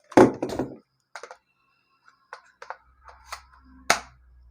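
Hard plastic clicks and knocks from cordless drill gear (battery, charger, case) being handled. A loud clatter right at the start, then scattered clicks, with a sharp click near the end.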